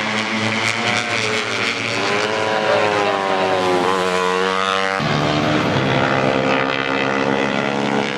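Tuned 150 cc four-stroke underbone racing motorcycles' engines running at high revs, the pitch rising and falling as they rev and pass. The sound changes abruptly about five seconds in.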